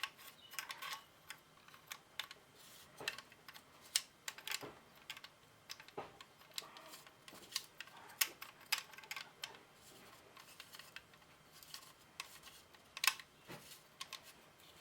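Light, irregular clicks and taps of the Magpul tool and forend nut being twisted and threaded by hand onto a Remington 870 shotgun's magazine tube, with a few sharper clicks around four, six and thirteen seconds in.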